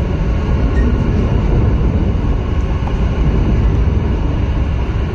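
Loud, steady low rumble of a metro train running on the Haliç metro bridge.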